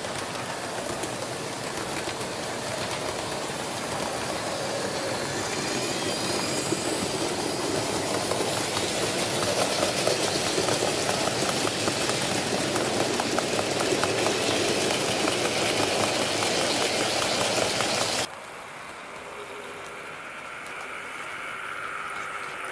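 Model train running on its track: a steady rush of wheel noise full of rapid clicking, slowly growing louder. About 18 seconds in it cuts off abruptly to a quieter, steadier running sound with a faint hum.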